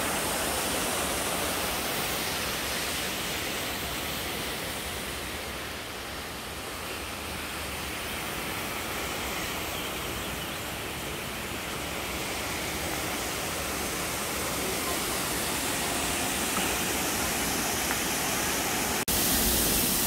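Steady rushing of a waterfall's falling water, a little softer through the middle and abruptly louder near the end.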